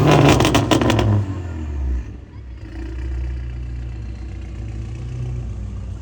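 Ferrari engine coming off a high rev: a quick string of sharp cracks in the first second as it falls away, then it settles to a low, steady idle about two seconds in.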